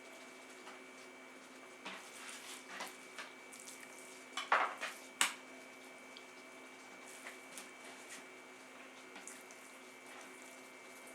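A knife and other kitchen utensils clinking and knocking against a cutting board and dishes while meat is trimmed: a run of light clicks about two seconds in, building to a few sharper knocks around five seconds. A faint steady hum runs underneath.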